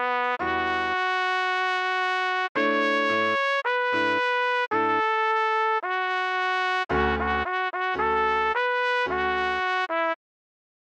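Trumpet playing a melody note by note in short phrases with brief gaps, with a low backing under some notes. It falls silent for about a second near the end.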